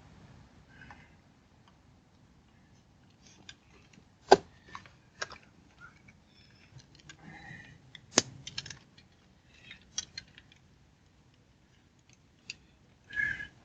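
Irregular sharp clicks and knocks, like small objects being handled, with two much louder snaps about four seconds apart.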